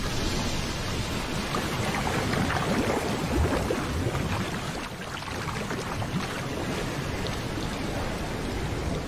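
Water gushing up from a well and rushing and splashing across a flooded courtyard, a steady rushing noise.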